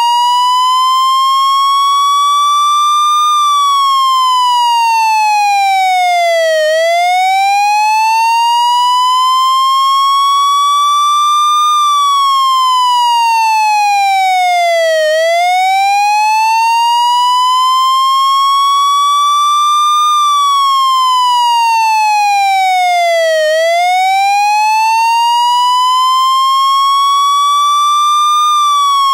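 Taiwanese fire engine siren sounding a slow wail: the pitch rises over about five seconds, then falls over about three, and the cycle repeats steadily, about three and a half times here.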